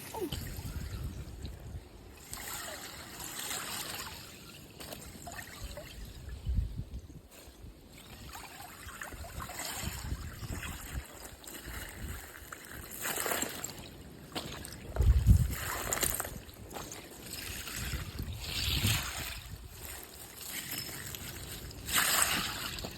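Creek water trickling, with uneven rushes of hiss and a few dull thumps; the loudest thump comes about fifteen seconds in.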